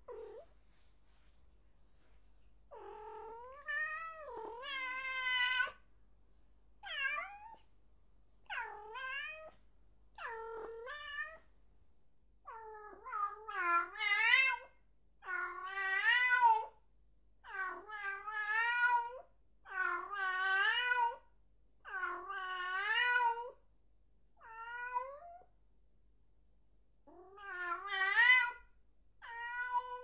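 A domestic cat meowing over and over: about a dozen wavering meows, some drawn out for a second or two, with short pauses between them.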